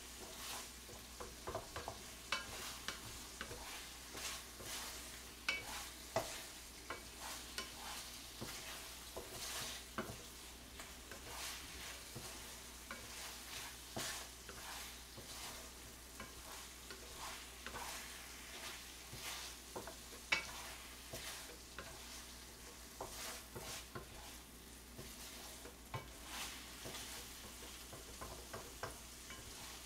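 Tteokbokki rice cakes sizzling in oil and red seasoning in a frying pan while being stir-fried, with frequent short scrapes and taps of the spatula against the pan.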